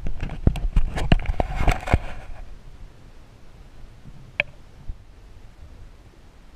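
Underwater sound through a GoPro's waterproof housing: a quick flurry of sharp clicks and knocks over a low rumble in the first two seconds, then one lone click about four and a half seconds in.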